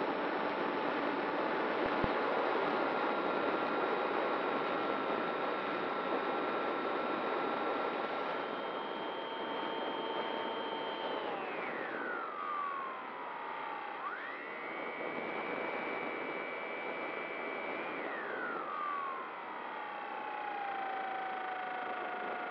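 Model plane's motor and propeller whining over a steady rush of wind on the onboard microphone. The motor is throttled back about halfway through, opened up again a couple of seconds later, then eased off again near the end.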